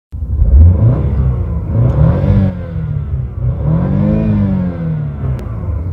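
A BMW car engine revved in park: the pitch climbs and falls back twice, the second rev reaching about 5,500 rpm.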